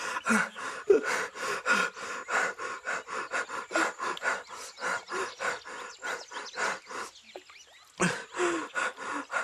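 A man panting hard, quick gasping breaths about three a second, with a brief pause near the end before the breathing starts again.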